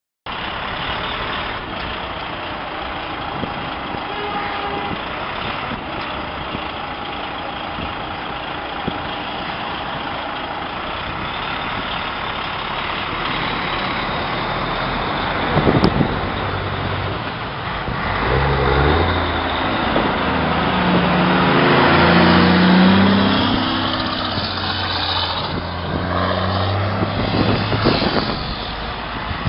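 Heavy diesel lorries running amid steady road traffic noise. A brief sharp noise comes just before the middle. Then a truck engine's low steady note grows louder for a few seconds and fades again.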